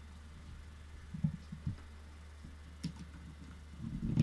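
A few scattered clicks and soft knocks from a computer keyboard and mouse being used at the desk, the loudest cluster near the end, over a steady low electrical hum.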